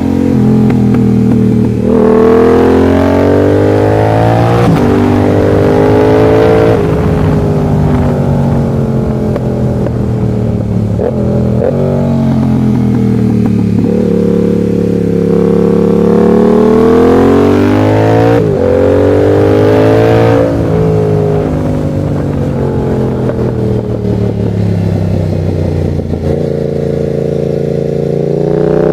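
Yamaha MT-07's 689 cc parallel-twin engine pulling hard through the revs and falling back again and again, its pitch climbing and dropping with sudden jumps between.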